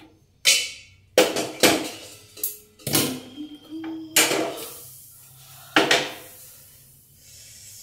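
Steel saucepan and tea strainer clattering against a gas stove and mug: about six sharp metallic knocks over several seconds, some ringing briefly.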